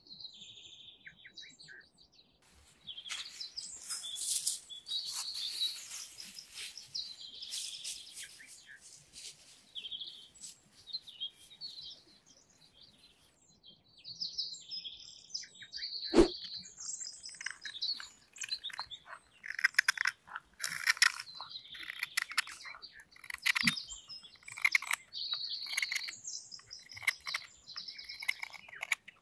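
Songbirds chirping and singing, with one sharp knock about halfway through and a softer one later.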